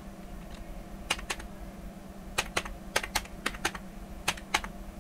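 Computer keyboard keys clicking as a number is typed in: about ten keystrokes in uneven pairs and groups, starting about a second in.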